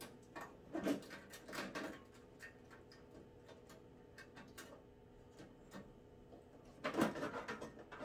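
Clips on a diesel heater's casing being worked loose by hand: scattered light clicks and ticks, with a louder knock near the end.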